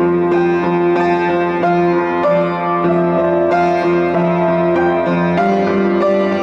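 Solo piano music, cutting in suddenly from silence: held notes over sustained low chords.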